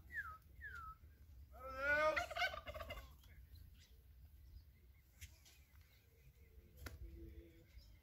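Bird calls: two short descending whistled notes in the first second, then about two seconds in a loud, warbling, gobble-like call lasting about a second, followed by a few faint scattered notes.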